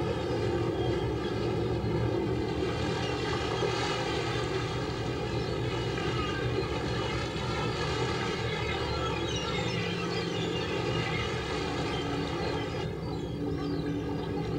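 Fishing boat engine running steadily at an even pitch, with a few short gull calls in the second half.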